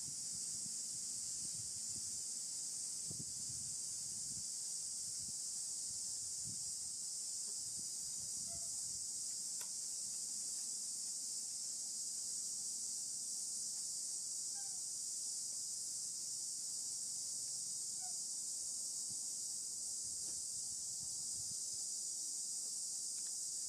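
Steady high-pitched drone of insects, with a few faint short chirps in the middle.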